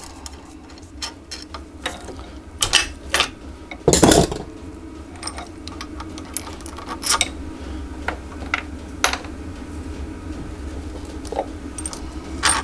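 Metal tools clinking and knocking as the nut, washers and sockets of a threaded bearing puller are worked off a motorcycle swingarm held in a steel vise. There are scattered light clicks, with one louder knock about four seconds in, over a steady low hum.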